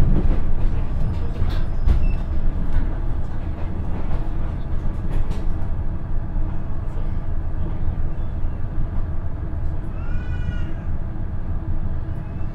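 KiHa 110 diesel railcar with its Cummins engine, heard from inside the car while running: a steady engine and wheel rumble with scattered clicks in the first half. A short high tone sounds about ten seconds in.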